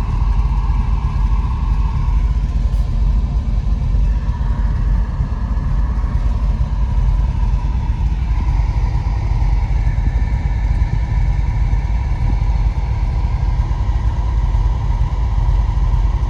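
Jensen Interceptor's Chrysler 440 V8 idling steadily with a low, even rumble.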